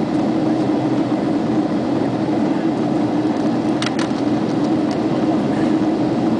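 Steady cabin noise of an airliner on descent, with the engines and airflow making a constant low hum. A few brief clicks about four seconds in.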